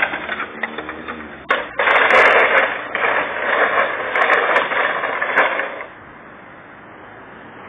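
Black plastic tray scraping and rattling across asphalt as a small dog drags it: a loud scraping noise, with a knock about a second and a half in, that stops about six seconds in.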